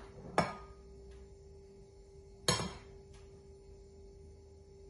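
Metal spoon scooping flour into a plastic measuring cup, clinking against it: two sharp clinks, about half a second in and about two and a half seconds in, with a couple of fainter taps, over a faint steady hum.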